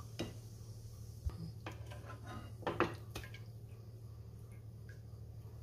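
A metal slotted spoon clinking and scraping against a nonstick wok while fried cashews are scooped out of the oil: a few scattered clicks and knocks, the loudest a little under three seconds in, over a low steady hum.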